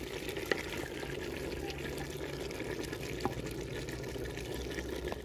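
Potato and radish-pod curry boiling in a clay cooking pot, a steady bubbling hiss with scattered small pops.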